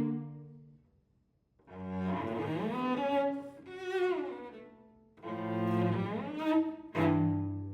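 Solo cello playing bowed phrases: a note dies away, a brief pause about a second in, then sustained low notes with sliding glides in pitch, and a sharp accented note near the end.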